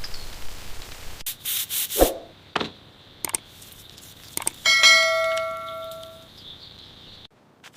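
Rasping metal scraping, then a few sharp knocks, then a metal part struck once about halfway through and ringing clearly for about a second and a half as it fades.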